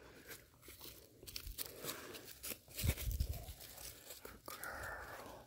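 Faint scattered rustling and crunching, with a few soft low thumps about three seconds in.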